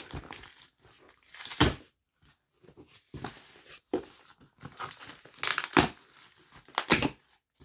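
A sturdy cardboard box being torn and wrenched open in irregular ripping and crinkling bursts, the loudest about a second and a half in, around five and a half seconds in, and near the end.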